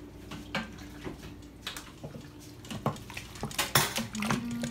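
Wooden spoon stirring thick macaroni and cheese in a stainless steel Instant Pot inner pot: irregular knocks and scrapes against the metal, loudest about three and a half seconds in.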